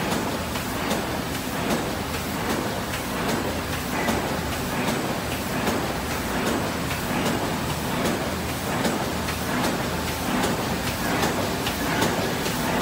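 KOTEN G460B multi-station paper assembling machine running, a steady mechanical clatter with many quick clicks from its feeding stations.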